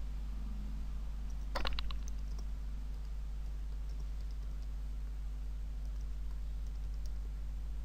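Typing on a computer keyboard: a quick run of several keystrokes about one and a half seconds in, then fainter scattered key taps, over a steady low hum.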